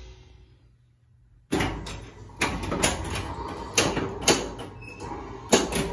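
Williams Demolition Man pinball machine in play: after a quiet moment the next ball starts about a second and a half in, with the machine's game sounds and a run of sharp mechanical clacks from the flippers and the ball striking the playfield.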